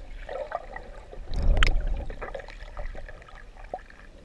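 Muffled underwater sound heard through a camera housing: water moving and gurgling, with scattered small clicks and a louder low rush about a second and a half in.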